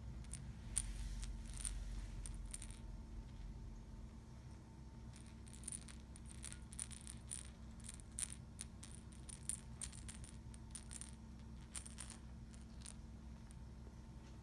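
A small bird-shaped nesting-doll toy clicking and rattling as a kitten bats and paws it around. The light clicks come in scattered bursts: a few in the first seconds, then many between about five and thirteen seconds in.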